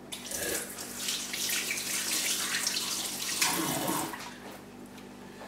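Kitchen tap running as hands are rinsed under it, the water turned off about four seconds in.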